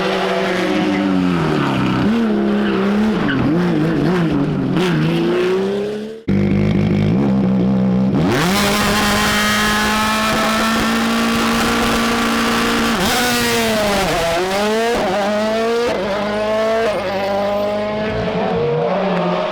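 Rally car engines at full throttle, revving up and down through gear changes. About six seconds in a sudden cut switches to another car, which holds a high steady note before falling and climbing again through quick downshifts and upshifts.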